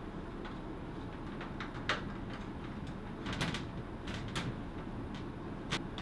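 Scattered clicks and light knocks of a screwdriver and a small plastic case fan being fitted to a perforated metal TV back panel, about five in all, over a steady low hum.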